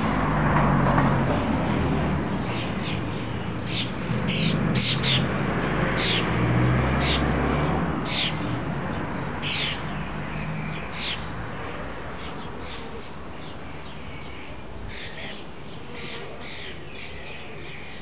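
Birds calling in a run of short, sharp calls, many in quick succession in the first half and a few more near the end, over a low rumble that fades away through the first half.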